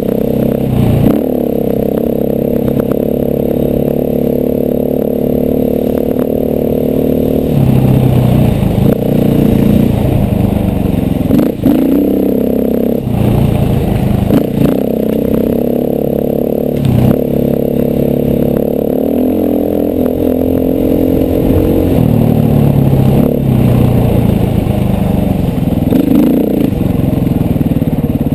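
KTM 450 dirt bike's single-cylinder four-stroke engine under way on a rough trail, its pitch rising and falling as the throttle is worked and gears change. Occasional knocks and clatter from rocks and the chassis.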